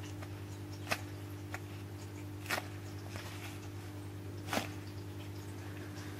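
Soft crackles and rustles of a homemade foam squishy being squeezed and pressed by hand, with three sharper crackles spread through it, over a steady low hum.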